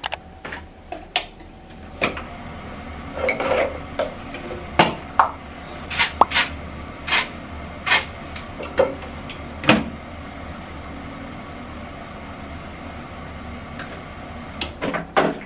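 Aerosol dry shampoo sprayed in several short hissing bursts into the hair, among clicks and knocks of toiletry bottles and other objects being handled.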